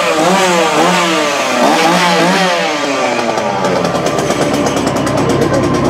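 A small engine revving up and down in quick pulses for about three seconds, then running on with a fast, even rattle.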